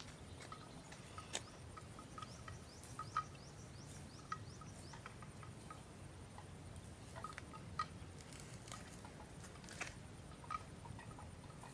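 Water buffalo grazing, with irregular short crunches and clicks as grass is torn and chewed. Now and then comes the short hollow knock of a neck bell, over a steady high insect hum.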